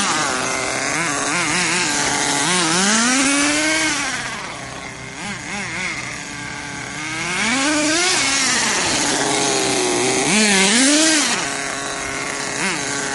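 Redcat Volcano SV nitro RC monster truck's small two-stroke glow engine, a high buzz revving up and down in several swells, easing off in the middle before revving up again twice.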